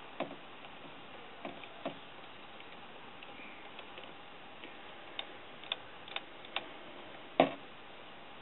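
Henry AR-7 survival rifle being reassembled by hand: scattered metallic clicks and light knocks as the barrel is fitted to the receiver, with a louder knock near the end.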